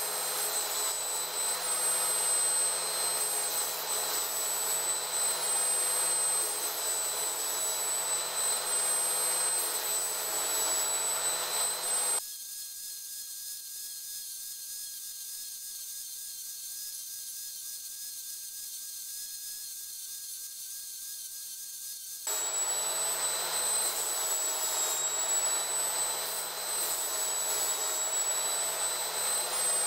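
Small angle grinder with a diamond disc running with a steady high whine as it grinds the carbide teeth of a circular saw blade. About twelve seconds in, the sound drops abruptly to a much quieter, thin high whine for about ten seconds, then comes back just as abruptly.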